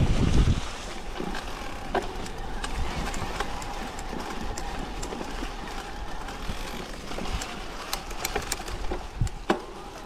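Focus Sam2 6.8 e-mountain bike rolling down a dry, leaf-covered forest trail: a steady rustle of tyres over leaves, with many scattered clicks and knocks from the bike and the ground, and a faint steady whine underneath. A short low thump opens it.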